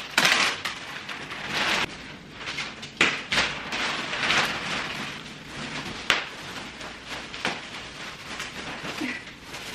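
Thick plastic wrapping being pulled and bunched off a couch, crinkling and rustling irregularly, with a few sharper crackles.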